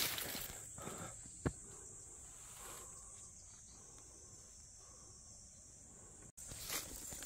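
Steady high-pitched buzzing of insects in a summer forest, with a faint footstep about a second and a half in; the sound drops out for an instant near the end.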